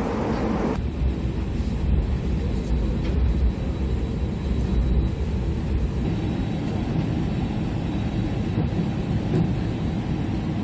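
Airliner cabin noise: a steady low rumble from the aircraft. About a second in, the higher hiss drops away and only the low rumble is left.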